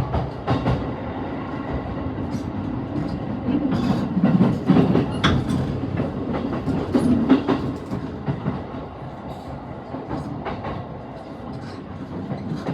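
Running noise heard from inside an E233-series commuter train car: a steady low rumble of wheels on rail, with irregular sharp clacks as the wheels cross rail joints.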